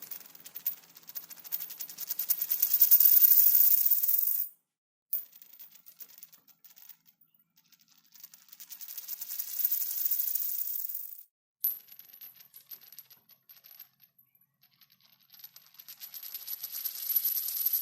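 A coin spinning and wobbling on a hard surface, its rattle growing faster and louder until it suddenly drops flat and stops. This happens over three spins in turn: the first two end abruptly, about four and eleven seconds in, and the third is building near the end.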